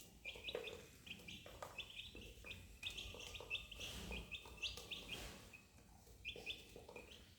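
Duckling peeping: a rapid run of short, high, upward-flicking peeps several a second, pausing briefly shortly before the end and then starting again.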